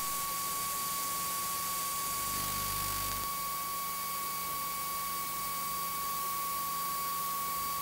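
Steady high-pitched electronic tone over even hiss and a low hum, the line noise of an old videotape recording, with a brief faint low rumble about two seconds in.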